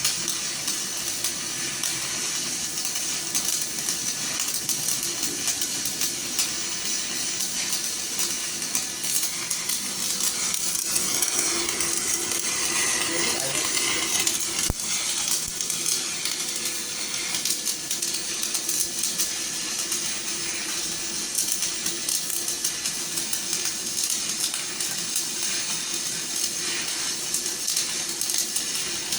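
Electric arc welding: the arc gives a steady crackling hiss.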